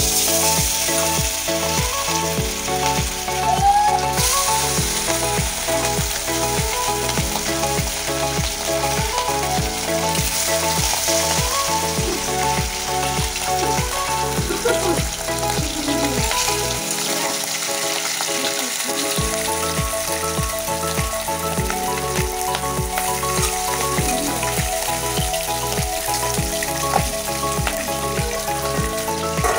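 Turmeric-marinated fish pieces frying in hot oil in a kadai, with a steady sizzle.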